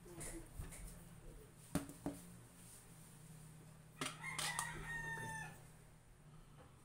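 A rooster crowing once, a drawn-out call about four seconds in that dips slightly at the end. Two short knocks come shortly before it.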